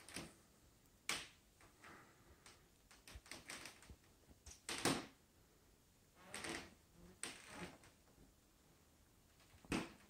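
Faint movement noise from a person walking slowly across a hardwood floor: a handful of soft thuds and shuffles spaced a second or more apart, over quiet room tone.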